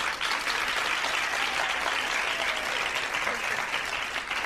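A crowd applauding steadily.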